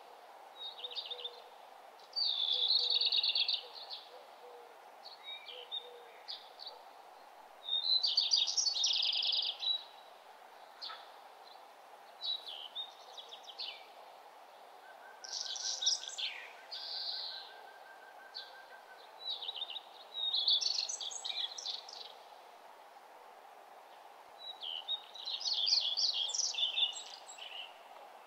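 Birds singing: short chirps and rapid trilled phrases come every few seconds over a steady background noise.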